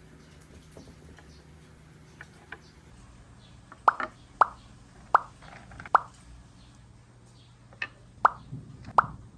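Marbles clacking down a wooden marble run: a few faint ticks, then from about four seconds in a run of sharp clicks, each with a short ring, coming every half second or so, a pause, and another run near the end.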